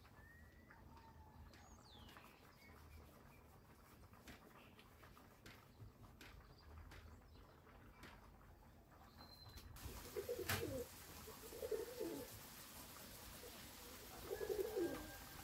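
A bird cooing: three short, low coos in the second half, over a faint background with a few light clicks and chirps.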